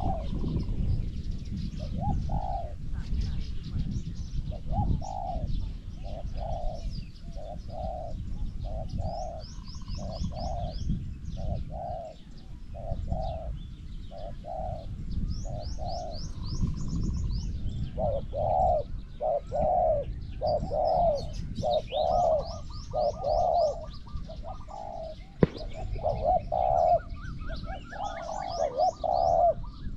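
Spotted dove cooing over and over in short repeated phrases, the coos growing louder and closer together after about 18 seconds. Small birds chirp high above it, with wind rumbling on the microphone and one sharp click near the end.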